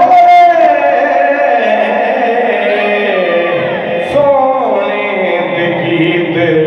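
A man's voice chanting a devotional recitation into a microphone, in long, drawn-out melodic phrases, with a new phrase starting about four seconds in.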